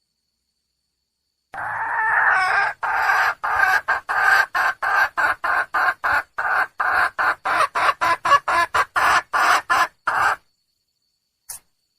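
Red junglefowl hen calling to attract a male: a drawn-out first call that breaks into a rapid run of short clucking calls, about three a second, which stops abruptly. A faint click follows near the end.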